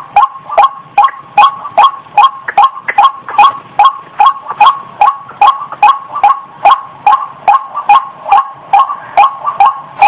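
White-breasted waterhen (ruak-ruak) calling: a fast, even string of sharp, loud call notes, about two and a half a second, repeated without a break.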